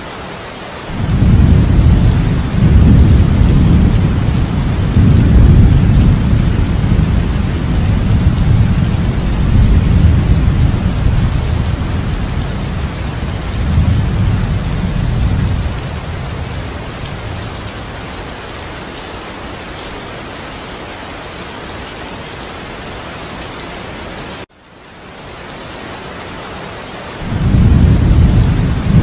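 Heavy rain pouring steadily, with a long rolling rumble of thunder that starts about a second in and slowly dies away. Near the end the rain cuts out briefly and fades back in, and a second thunder rumble begins.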